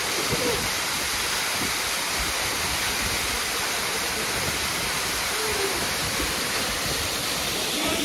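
Waterfall pouring steadily down a rock face into a pool: a constant, even rush of water.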